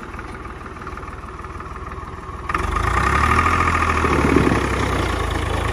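Swaraj 735 tractor's three-cylinder diesel engine running at a steady idle, then opening up sharply about two and a half seconds in as the tractor pulls away, and holding the louder, steady note.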